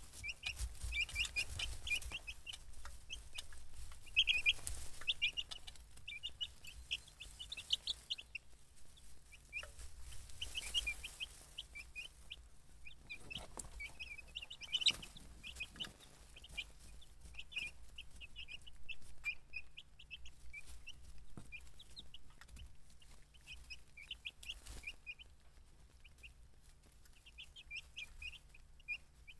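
A brood of young chicks peeping: many short, high cheeps in irregular clusters, over a faint steady low hum.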